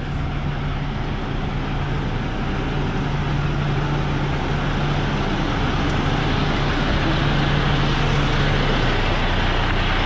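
Diesel semi-truck engines idling: a steady low hum under an even rushing noise, with the deepest tone of the hum dropping away near the end.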